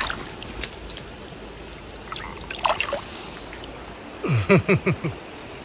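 Shallow river water running over stones, with a couple of brief splashes about two to three seconds in as a caught brown trout is let back into the water. A man's voice sounds briefly a little after four seconds.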